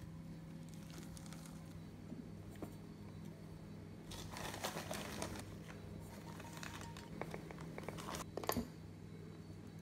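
Faint handling noise from ingredients and packaging: a spell of crinkling and rustling about four seconds in, then a few light taps and rustles, over a steady low hum.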